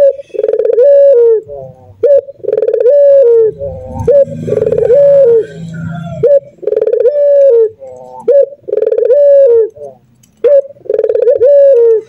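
Male Barbary dove (ringneck dove) cooing over and over, each call a short rising note then a longer coo that dips at its end, repeating about every two seconds.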